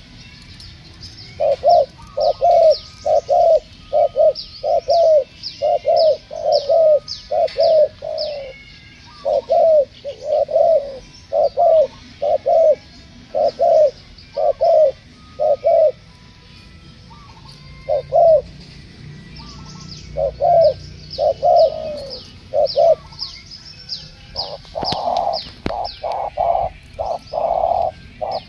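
Spotted doves cooing in long runs of short, repeated coos, a few a second, with a pause in the middle and louder, longer coos near the end. Small birds chirp in short high notes over it.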